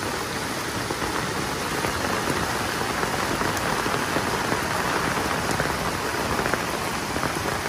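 Steady rush of muddy floodwater pouring fast across a dirt track, churning into white water, mixed with the hiss of heavy rain.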